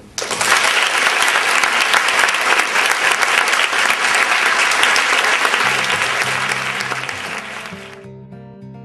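Audience applauding, starting suddenly and dying away after about six seconds before it cuts off near the end. Acoustic guitar music comes in under the clapping and is left on its own at the end.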